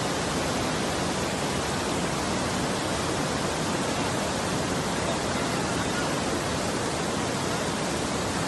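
Floodwater rushing through a street and pouring over a road divider: a steady, unbroken rush of water.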